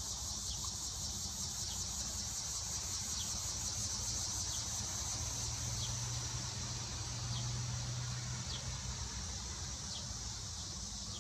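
Steady high-pitched chorus of insects in the background, with faint short chirps every second or so. A low hum comes in about four seconds in and fades out about nine seconds in.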